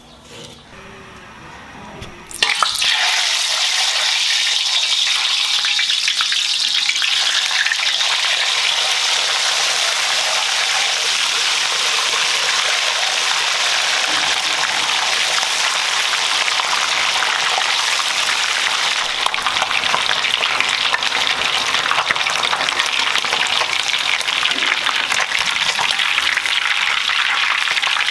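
Whole fish deep-frying in hot oil in a large wok: a loud, steady sizzle of bubbling oil that starts suddenly a couple of seconds in, after a quiet start.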